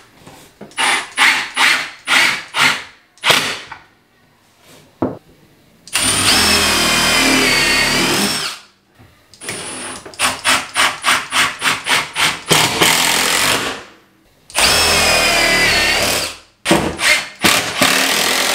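Cordless drill driving long 3-inch wood screws through a wooden ledger into wall studs: quick start-stop squeezes of the trigger, then three longer runs of two to three seconds as the screws are driven home, the motor pitch shifting as it takes the load.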